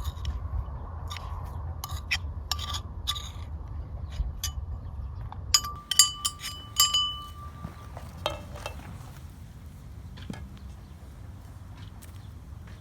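Kitchenware clinking: scattered light taps and clicks, then a cluster of ringing clinks about six to seven seconds in, over a low steady rumble.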